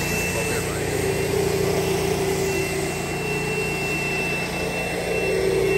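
Steady engine hum, a motor running at an even speed.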